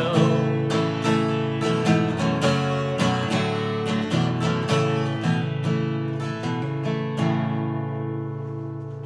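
Capoed acoustic guitar strummed in a steady rhythm of about two strums a second, ending on a final chord about seven seconds in that rings out and fades away.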